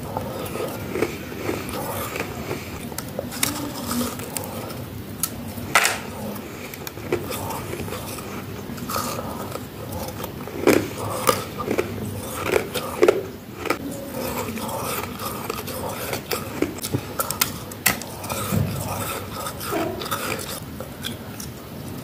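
Close-miked biting and chewing of crispy, soft chunks of humidifier-grown freezer frost: a run of sharp crunches, with the loudest bites clustered about halfway through.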